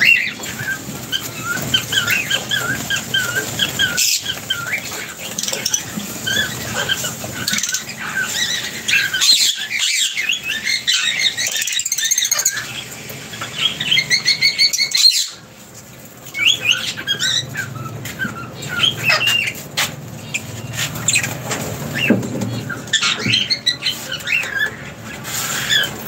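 Lovebirds chattering: a rapid, continuous run of short, high chirps and squeaks from several birds, dropping off briefly a little past the middle.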